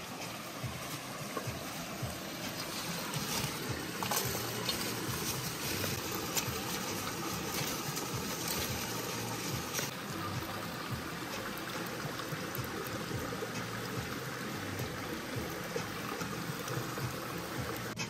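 Steady rush of a river stream flowing over rocks, with a few light clicks.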